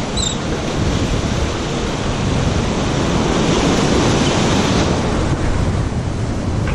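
Ocean waves washing at a jetty, with wind buffeting the microphone in an uneven, rumbling rush.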